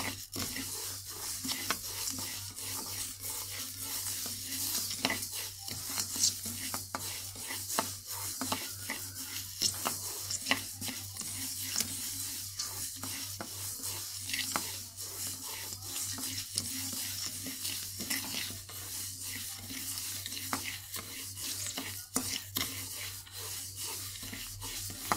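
Wooden spatula stirring and scraping dry glutinous rice grains around a wok in a continuous, irregular run of short scratchy strokes. A low steady hum sits underneath. The rice is being dry-roasted for khao khua and is toasted dark gold, close to browning.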